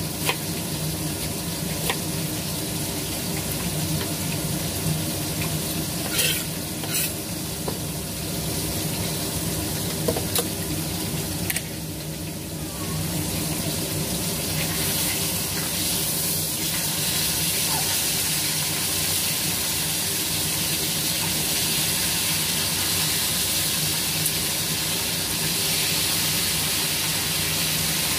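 Food sizzling in a frying pan on the stove while a cooking utensil stirs it, with a few sharp clicks and scrapes in the first half. The sizzle grows louder and steadier from about halfway through.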